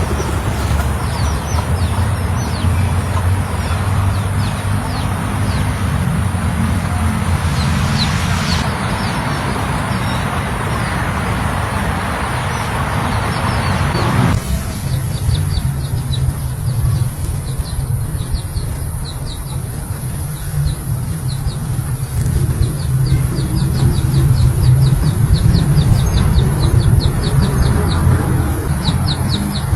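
Young poultry peeping in quick, evenly repeated high chirps, several a second, over a loud steady rumbling noise. The background noise changes abruptly about halfway through.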